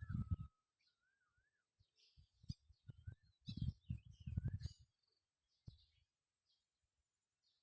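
Birds chirping and calling in short, warbling phrases, with a few bursts of low rumble mixed in, the longest about four seconds in.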